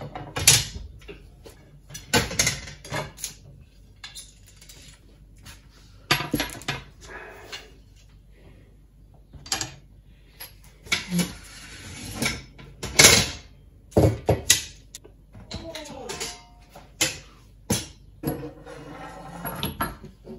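Aluminium rods and boom of a ZL Special Yagi antenna kit knocking and clattering against each other and the wooden worktop as they are picked up and laid out, in an irregular string of knocks and short scrapes.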